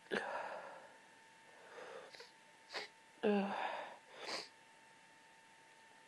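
A woman's half-stifled sneezes and sharp breaths during a hay-fever sneeze fit, in several short bursts, with a brief voiced sound about three seconds in.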